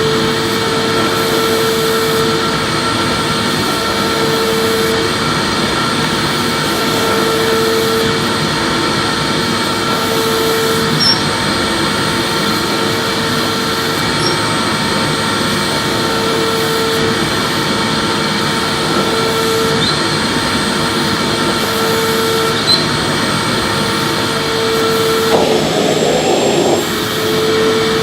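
Vacuum cleaner running steadily while sweeping, a tone in its hum swelling and fading about every three seconds, with a brief change in the sound near the end.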